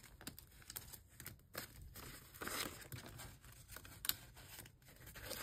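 Paper banknotes rustling and crinkling as they are counted by hand and slipped into a budget binder's envelope, in short scattered bursts of handling, a few sharper crinkles about two and a half and four seconds in.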